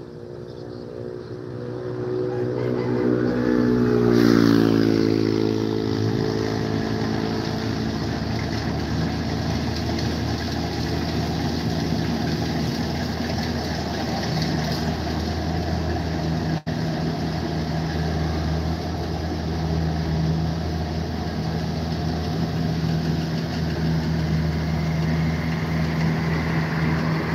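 A Kubota rice combine harvester's diesel engine running steadily while it cuts rice. The engine sound swells over the first four seconds or so, then holds an even drone.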